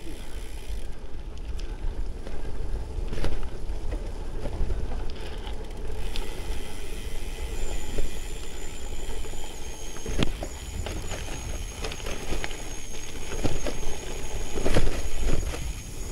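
Gravel bike rolling fast down a dirt forest track. The tyres rumble over the ground, wind buffets the microphone, and the bike knocks and rattles over bumps, with louder jolts about ten and fifteen seconds in. A faint, thin high tone joins about eight seconds in.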